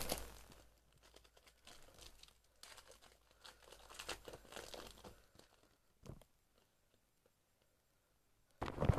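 Match Attax trading-card packets being torn open and crinkled: faint scattered rustles and crackles for a few seconds, then a single soft knock about six seconds in.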